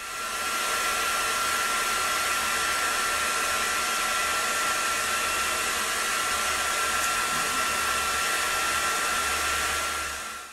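Hair dryer running steadily: a constant rush of air with a steady high motor whine over it.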